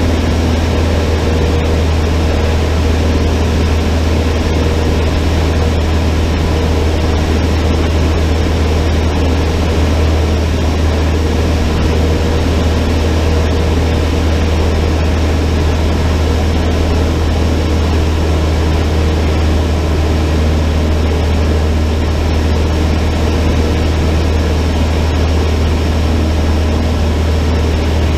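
Cessna 152's propeller and four-cylinder Lycoming O-235 engine running at steady power: a constant low drone with an even rush of noise above it that does not change.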